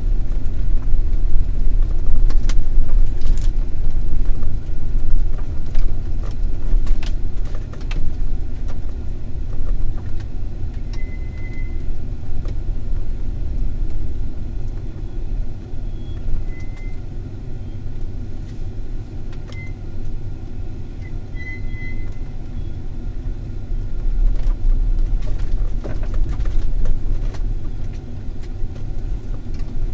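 Off-road vehicle driving over a rough dirt track, heard from inside the cabin: a steady low rumble of engine and tyres, with frequent rattles and knocks from the bumpy ground and a few brief high squeaks.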